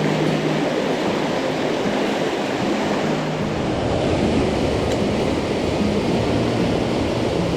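Mountain stream water rushing over rocks: a loud, steady rush.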